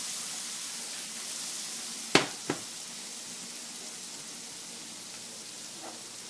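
Banana slices frying in butter in a cast iron skillet, a steady sizzle. About two seconds in come two sharp knocks, about a third of a second apart.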